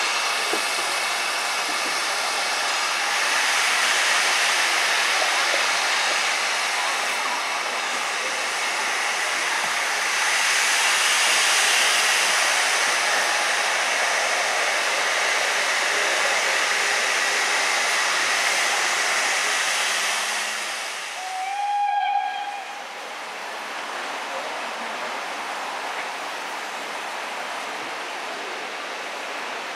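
Steam hissing steadily from a J94 'Austerity' 0-6-0 saddle tank steam locomotive. About two-thirds of the way in there is a short steam whistle blast, after which a quieter steam hiss carries on.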